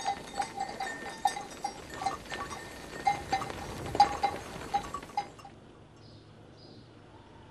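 Bells on a grazing flock of sheep clanking irregularly, many overlapping strikes, stopping suddenly about five seconds in. After that, a few faint bird chirps.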